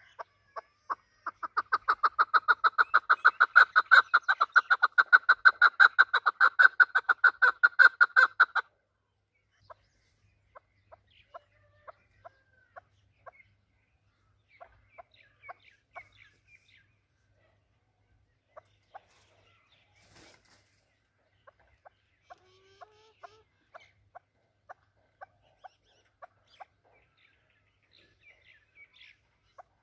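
Chukar partridge calling: a loud, fast run of repeated clucking notes, several a second, for about seven seconds, then it breaks off into slower, scattered single notes.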